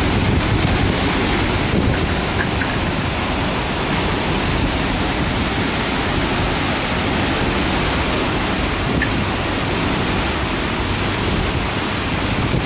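Strong storm wind and rain, a loud, steady, even rush with no breaks.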